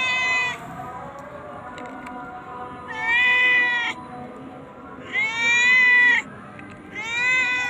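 Street cat meowing in long, drawn-out, pleading calls: one at the start, then three more about two seconds apart. The cat is begging, taking the person for someone bringing food.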